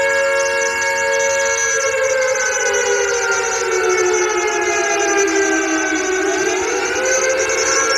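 Air raid siren wailing: it holds a steady pitch, then its pitch slowly falls over about four seconds and rises back up again near the end.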